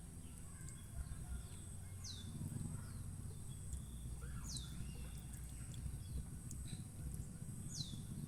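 A bird calling three times, each call a short high note sweeping downward, over a steady thin high-pitched whine and a low rumble.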